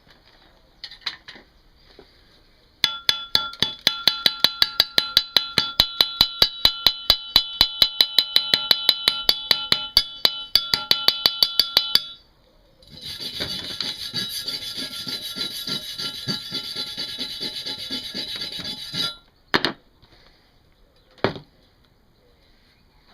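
Stick-welding arc powered by car batteries. It first crackles in quick regular pulses, about six a second, then after a short break runs as a dense, steady hissing crackle for about six seconds and cuts out. Two short knocks follow.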